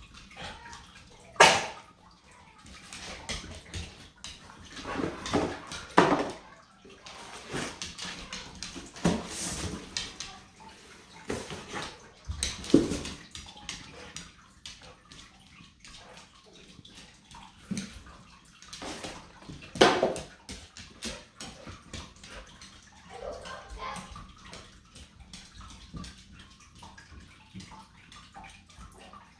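A dog nosing through cardboard boxes stuffed with paper: irregular rustling and scuffing of cardboard and paper, broken by several sharp knocks as the boxes are bumped.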